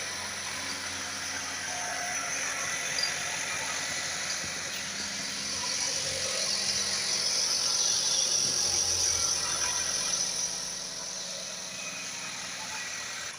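Chevrolet Captiva 2.4 16-valve four-cylinder engine running, with a noise from the timing chain. The chain's tensioner is worn and its guide is gone. The sound grows louder about midway and drops back a little after ten seconds.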